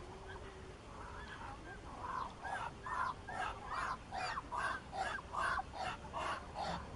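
Muscovy duck giving short calls over and over, about two or three a second, faint at first and louder from about two seconds in.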